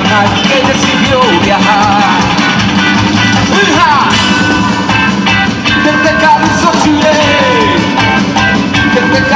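A ska-rock band playing a song live at full volume: drums, bass and guitar, with a melody line that bends and glides over them.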